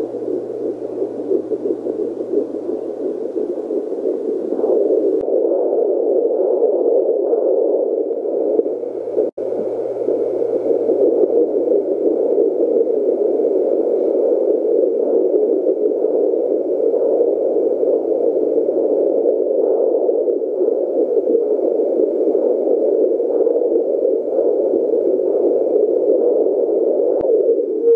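JPD-100S4 handheld fetal Doppler's loudspeaker giving its steady rushing ultrasound noise, with a faint hum under it, as the probe searches for the fetal heartbeat. The sound cuts out briefly about nine seconds in.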